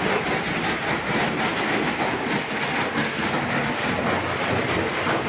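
Crowd noise: many people clapping and talking at once, a dense steady clatter of applause with chatter.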